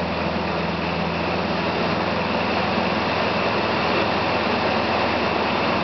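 Small light aircraft's engine droning steadily with rushing airflow, heard inside the cockpit, growing a little louder in the second half.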